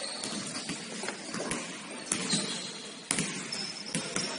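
Basketball game play on an indoor court: irregular ball bounces and footfalls, with short high sneaker squeaks about two seconds in and again near the end.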